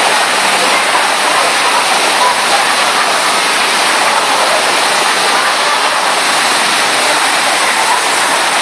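Sheet of pumped water on a FlowRider surf simulator rushing up the wave ramp: a loud, even rush of water.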